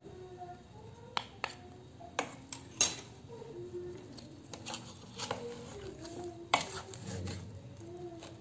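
Wooden spatula knocking and scraping against a stainless steel pot while mixing raw chicken with chopped parsley and spices. The knocks come irregularly, the loudest about three seconds in and again about six and a half seconds in.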